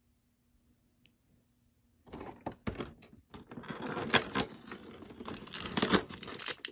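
Toy packaging being torn open and crinkled, with sharp snaps and clicks, starting about two seconds in after near silence.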